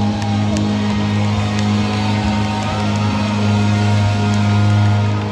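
Live rock band holding a steady low chord, with electric guitar notes sliding and ringing above it.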